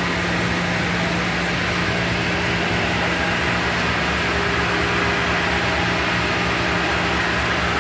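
Steady machinery hum: a constant low drone under even noise, with a higher steady tone joining about four seconds in.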